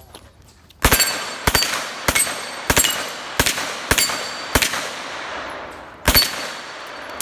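MP5 submachine gun firing on full auto in short bursts: seven bursts about every 0.6 seconds, starting about a second in, then a pause and one more burst near the end. Each burst echoes across the range.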